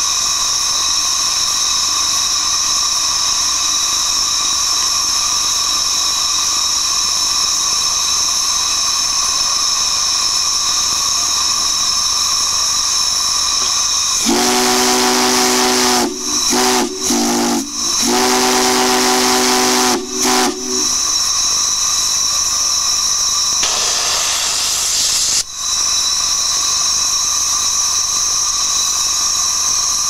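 Steam whistles on a manifold rig blowing on live steam. A high-pitched whistle sounds steadily. About halfway in, a deep multi-note chime whistle blows in several short blasts for about seven seconds, then comes a brief rush of steam hiss before the high whistle takes over again.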